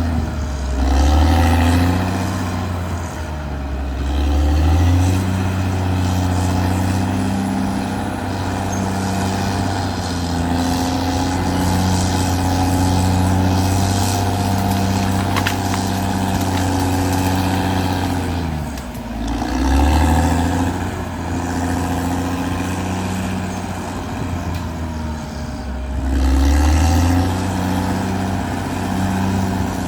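Caterpillar D6R XL bulldozer's diesel engine working under load, its note rising and falling repeatedly as the load changes. About two-thirds of the way through it sags sharply, then revs back up.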